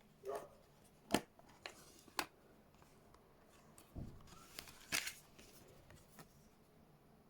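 Handling noise from a wallet's metal presentation case: a few light clicks and taps, a dull knock about four seconds in and a short rustle about five seconds in.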